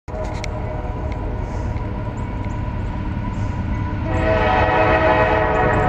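Horn of an approaching Kansas City Southern coal train's locomotive, a steady chord that swells louder about four seconds in, over a low steady rumble.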